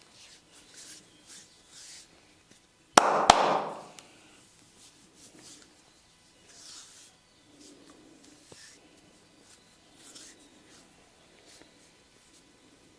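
Soft rubbing and brushing of massage strokes over the body. About three seconds in come two sharp knocks a third of a second apart, with a loud rushing noise that fades within a second.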